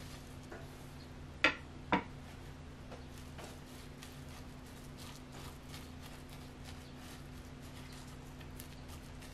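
Two sharp knocks about a second and a half in, then faint light taps and scrapes of a wooden utensil spreading chopped fried tofu and other ingredients flat in a rice cooker's inner pot, over a steady low hum.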